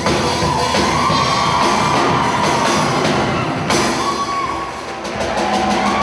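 Steel band playing live, steel pans over drum kit, with a crowd cheering over the music.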